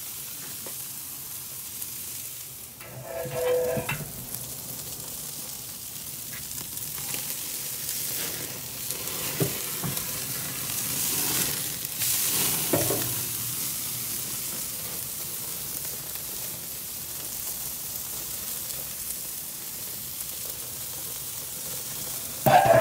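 Thick tomahawk ribeye steaks sizzling steadily on the grate over hot charcoal, with a few short louder sounds as the steaks are handled.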